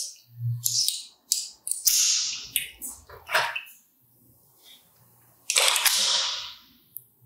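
Clicks and rasping sliding sounds of a CO2 Hi-Capa 1911 blowback airsoft pistol being handled, its slide and safety worked by hand. A longer rasp about five and a half seconds in is the loudest sound.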